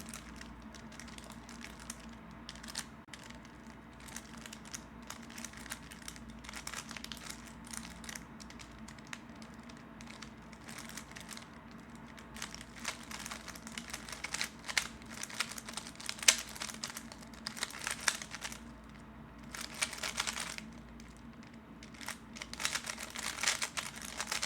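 3x3 Rubik's cube being turned by hand in a slow solve: rapid plastic clicks and clacks of the layers turning, coming in bursts with short pauses, busier and louder in the second half.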